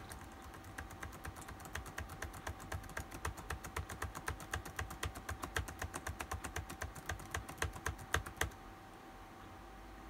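Laptop keyboard's F2 and F7 function keys tapped rapidly over and over, several presses a second, as the laptop powers up, to break into the BIOS setup and boot menu. The tapping stops about a second and a half before the end.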